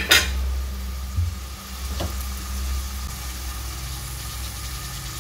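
Sliced onions frying in oil in an aluminium pot, a faint sizzling hiss over a steady low hum. Two clinks of the metal spoon at the very start and a light click about two seconds in.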